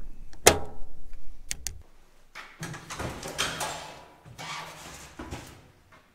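Toolbox being handled: a few sharp clicks and a knock, the loudest about half a second in, then scraping and shuffling for a few seconds as a truck toolbox is moved about on a workbench.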